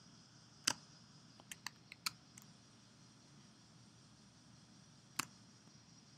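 Sharp clicks from working at a computer: one click under a second in, a quick run of four or five about a second later, and one more near the end, over a faint steady hiss.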